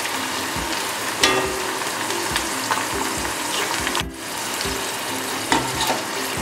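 Sweet corn kernels deep-frying in hot oil in an iron kadai, a steady sizzle, as a wire mesh strainer scoops them out after about two minutes of frying. A couple of light clinks of the strainer against the pan stand out, and the sizzle dips briefly about four seconds in.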